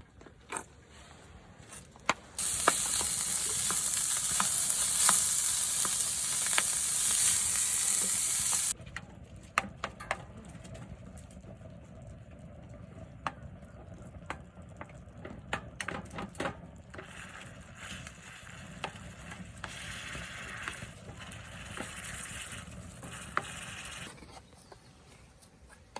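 Food sizzling in a hot pan: a loud sizzle about two seconds in that cuts off suddenly some six seconds later, then scattered clicks and a quieter sizzle later on.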